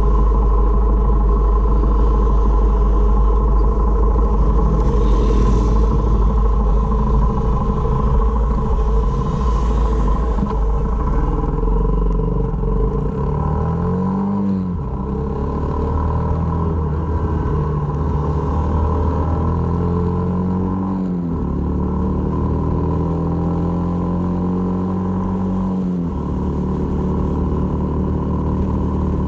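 Honda MSX125's single-cylinder four-stroke engine running under way, with heavy wind rumble on the microphone in the first half. The engine pitch climbs and drops back a few times in the second half as it revs.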